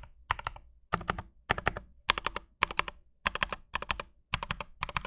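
Wooden-cased mechanical keyboard with Gateron Oil King switches being typed on in quick flurries of several keystrokes, about one flurry every half second. The case is damped with a silicone sheet and polyfill, giving a clean wooden thock with most of the hollowness gone.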